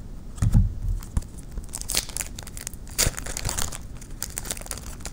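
Trading card pack wrapper crinkling and tearing open, with cards rustling as they are handled. A dull thump about half a second in is the loudest moment.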